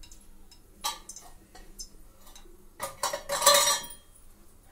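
Metal kitchen utensils clinking: a few light clicks, then a louder clatter about three seconds in.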